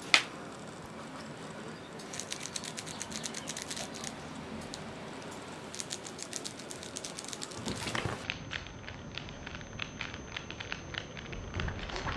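A sharp click at the very start, then spells of quick crackly rustling as a hand fiddles a small fuzzy toy against a duvet.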